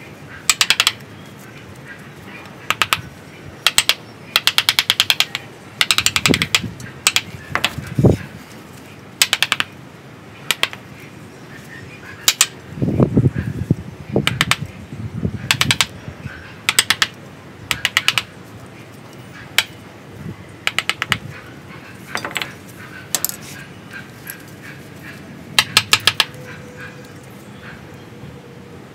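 Hand chisel carving into a bonsai trunk's wood, giving repeated short bursts of rapid crackling clicks as the blade bites and splits the fibres.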